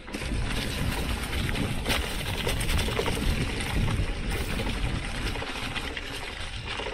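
Mountain bike rolling downhill over dry leaves and dirt: steady tyre noise and wind rush on the microphone, with scattered crackles and knocks from the bumps. The noise jumps up right at the start as the bike picks up speed.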